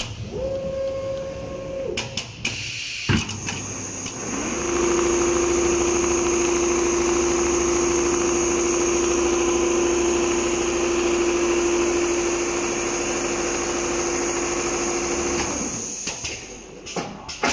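Richpeace computerised multi-head leather sewing machine stitching car-upholstery leather: a short run in the first two seconds, a click, then a long steady run with a steady whine and hiss that rises into place about four seconds in and cuts off near the end, followed by a few clicks and knocks.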